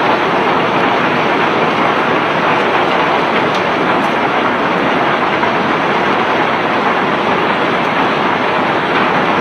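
Cobblestones being unloaded from a barge by machinery: a loud, steady, unbroken din with no separate knocks standing out.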